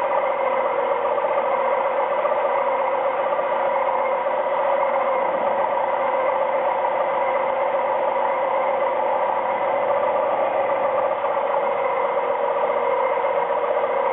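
Micromark 7x14 mini lathe running at about 400 RPM with a steady whine, while a boring bar takes a light pass of about a thousandth inside aluminium tubing. The cut is smooth, with no chirping or chatter, the sign of a rigid enough setup.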